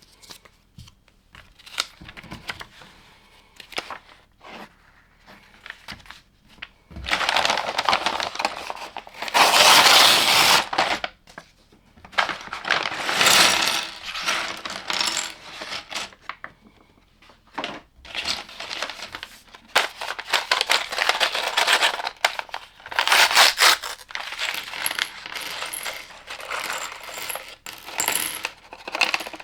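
Small plastic LEGO pieces clattering and clicking on a hard surface. There are several dense runs of rattling, the loudest near the middle, with scattered single clicks between them.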